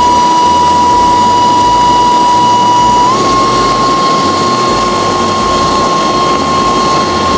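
Makita cordless leaf blower running at high power: a steady high whine over a rush of air. Its pitch steps up slightly about three seconds in.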